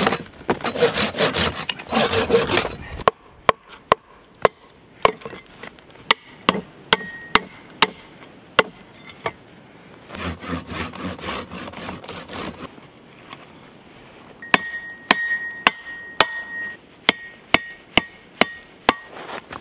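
A folding pruning saw rasps through a pine log for about the first three seconds. Then come a series of sharp knocks as a hatchet is worked into the wood to split it. A second short stretch of rasping comes about ten seconds in, and the knocks near the end ring briefly with a metallic tone.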